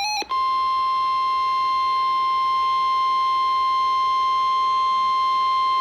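Weather-radio emergency alert tone: a single steady beep near 1050 Hz, held unbroken. It starts about a quarter second in, right after the end of the warbling digital header burst, and announces a severe thunderstorm warning.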